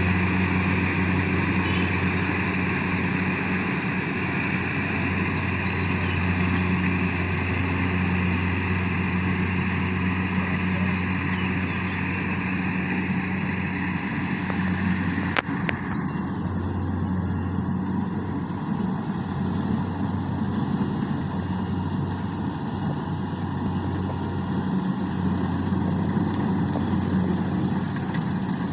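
Engine of a rice-harvesting machine running steadily with a low, even hum. A sharp click comes about halfway through, after which the sound is duller.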